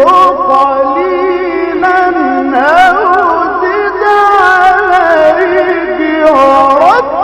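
Melodic Quran recitation: one voice holding long, ornamented vowels that glide up and down in pitch, broken only briefly around a couple of points.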